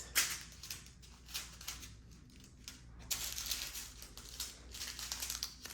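Small plastic baggies of diamond-painting drills being handled, rustling and crinkling with the rattle of the tiny resin drills inside. There is a brief burst just after the start and a longer stretch from about three seconds in.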